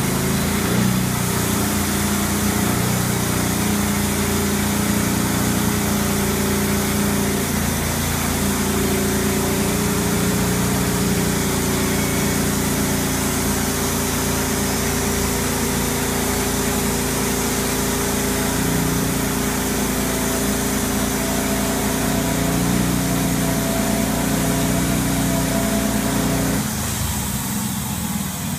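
Norwood portable bandsaw mill's gas engine running under load as the band blade saws through a black walnut log, a steady mechanical drone; the sound thins out in the low end near the end.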